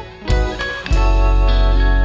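Background music with guitar, plucked notes over a steady bass.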